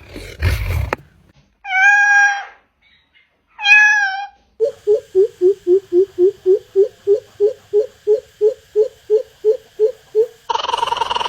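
Bird calls in several short clips. First a rough, noisy call in the first second, then two drawn-out cat-like mewing calls. These are followed by a fast run of about twenty short pulsed notes, about three to four a second, which stops shortly before the end.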